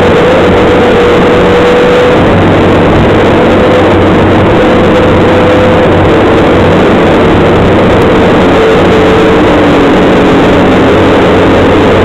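Bobcat skid steer loader's diesel engine running loud and steady, heard from inside the cab, with a whine over the low engine hum that dips lower about ten seconds in.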